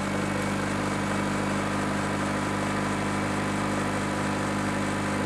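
Car engine idling steadily, just jump-started from a lithium jump starter pack that is still clamped to the battery.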